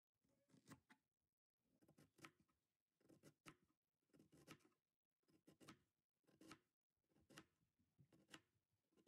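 Kitchen knife slicing cabbage into thin strips on a plastic cutting board: faint crisp cuts, each ending in a tap of the blade on the board, about one stroke a second.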